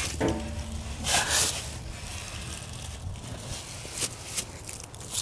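Heavy steel beam being manhandled onto a steel mill carriage. A metal clank with a short ringing tone comes at the start, then a louder scrape about a second in, and a few light knocks later. Footsteps shuffle in dry leaves throughout.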